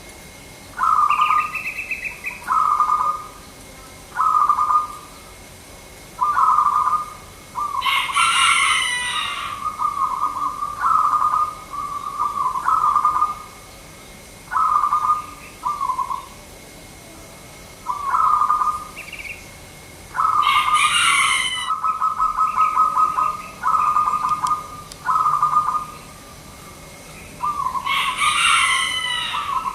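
Zebra doves (perkutut) cooing: short, rolling, trilled coos repeated every second or two. Three louder, harsher bird calls break in, about a quarter of the way in, two-thirds of the way in and near the end.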